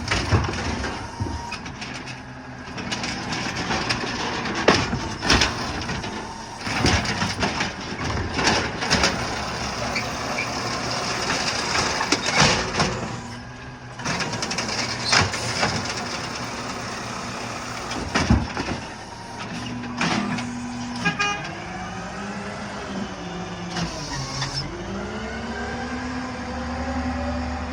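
Garbage truck emptying a trash cart: repeated bangs and clanks from the lift and the cart against the hopper over the running engine. After about twenty seconds the truck's engine revs up and pulls away, its pitch rising and dropping as it shifts gears.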